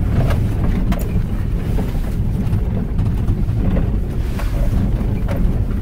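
Cabin noise inside a Toyota Land Cruiser driving on a dirt road: a steady low rumble of engine and tyres, with a few scattered knocks and rattles as it jolts over bumps.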